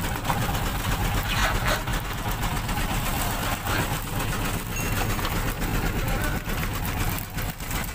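Fishing boat's engine running steadily with a low drone, under a constant rushing noise.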